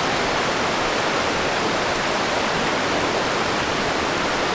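Fukiware Falls on the Katashina River: water pouring over the rock ledges in a steady, even rushing roar.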